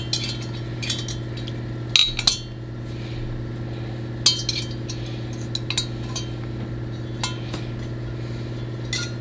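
Steel hand tools clinking against each other and against the aluminium cylinder head, a few scattered sharp metal clinks, while a small set screw on a Time-Sert spark plug insert install tool is loosened with a hex key. A steady low hum runs underneath.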